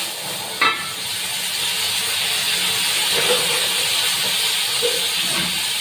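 Shrimp with turmeric and salt frying in hot mustard oil: a steady, loud sizzle, with one short sharp click about half a second in.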